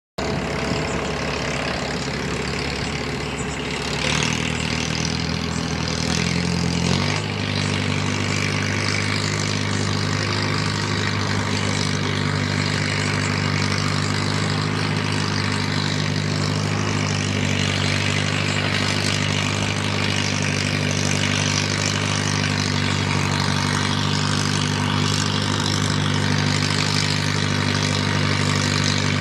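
Antique Farmall tractor engine running at a steady speed with the pulling sled hitched. Its speed changes at about 4 and 7 seconds in, then holds steady.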